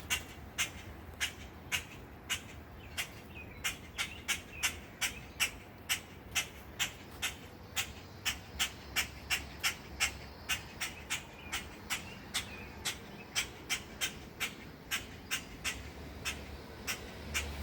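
A parent bird squawking in a steady series of short, sharp calls, about two to three a second, typical of an adult bird alarm-calling over its grounded fledgling.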